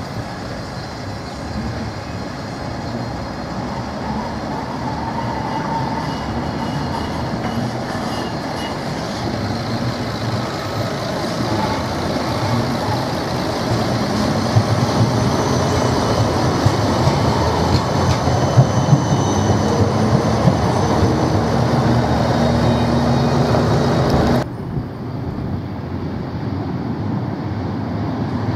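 Siemens Combino Plus low-floor tram passing close by, its wheels running on the rails, growing louder as it goes by and carrying a steady hum toward the end of the pass. The sound cuts abruptly to quieter street noise near the end.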